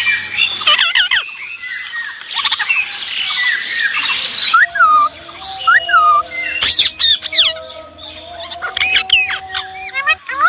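Indian ringneck parakeet squawking and chattering in quick, gliding calls, broken by sharp rising screeches about seven and nine seconds in.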